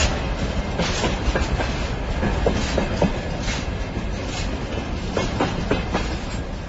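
Freight train moving slowly as it gets under way: a steady low rumble with irregular metallic clanks and clicks from the cars and wheels, easing off slightly near the end.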